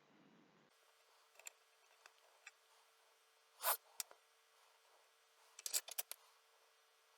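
Faint clicks and taps of a soldering iron, solder and a PL259 coax connector being handled on the bench while the outer shield is soldered. A brief swish about three and a half seconds in is the loudest sound, and a quick run of clicks follows near six seconds.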